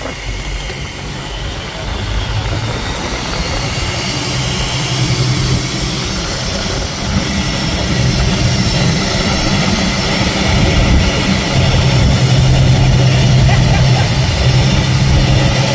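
Fishing boat's engine running steadily, a low drone that grows louder partway through, under a constant rushing noise.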